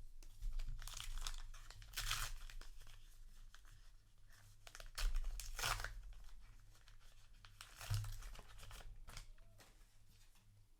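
A paper booster pack of trading cards being torn open and its wrapper crinkled, in several short rustling bursts, the loudest about halfway through.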